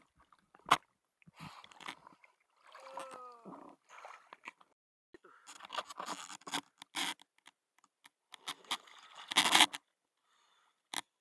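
Irregular knocks, scrapes and rustles of a speared fish and its spear shaft being handled in a small boat, with a brief pitched sound about three seconds in and a louder clatter near the end.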